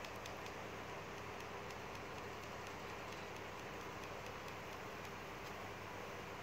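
Quiet room tone: a steady low hum and hiss with faint, scattered soft ticks.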